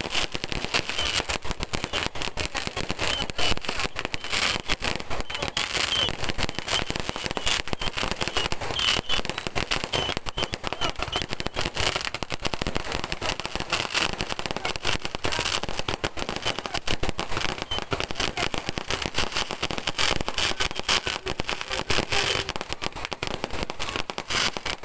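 Fireworks and firecrackers going off: a dense, unbroken run of rapid bangs and crackles.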